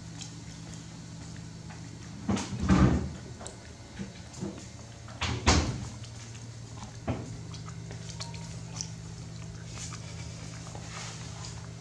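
Two loud knocks a few seconds apart, then a fainter one, over a steady low hum.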